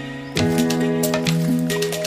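Background music: plucked or keyboard notes in a quick melody over sustained tones.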